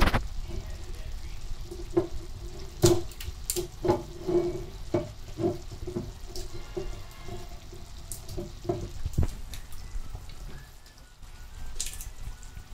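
A utensil stirring pilchards and onions in a frying pan, knocking against the pan at irregular intervals, the loudest knock about three seconds in.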